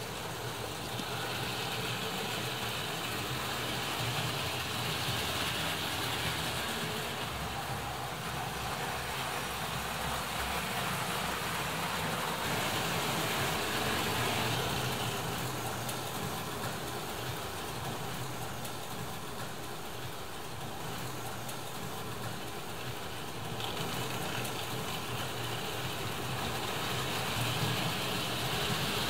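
Hornby Dublo model trains running on metal track: a steady rumble of wheels on rail with electric motor hum, its tone shifting every several seconds and growing a little louder near the end as a train of coaches passes close by.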